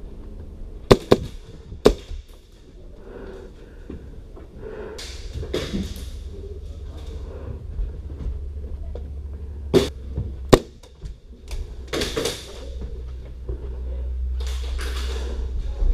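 Airsoft gunfire: four sharp cracks, a pair about a second apart near the start and another pair about ten seconds in, with short swells of hiss between them over a steady low rumble.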